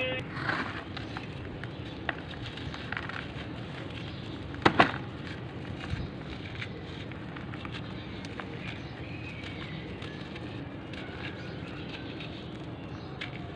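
Dry, gritty charcoal crumbling between the fingers, a soft continuous grinding crunch with scattered small crackles. A louder double crack comes a little under five seconds in as a lump breaks.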